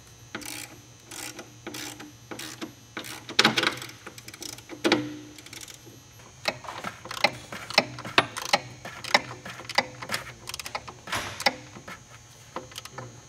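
Socket ratchet clicking in short irregular runs as the catch can bracket's fasteners are tightened, with two louder knocks about three and five seconds in.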